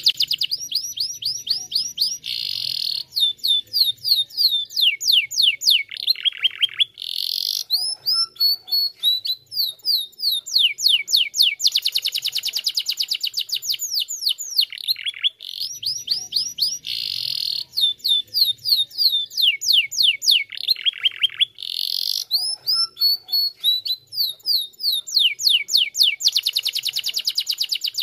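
Domestic canary singing continuously: long runs of rapid, evenly repeated trills and quick downward-sweeping notes, broken by short pauses. The same song sequence of about fifteen seconds is heard twice.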